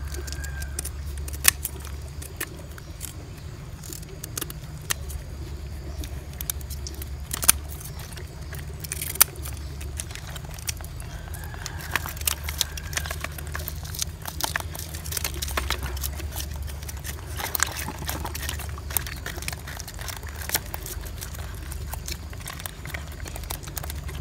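Scissors snipping through small climbing perch as they are cleaned: scattered sharp snips and clicks of the metal blades, over a steady low rumble.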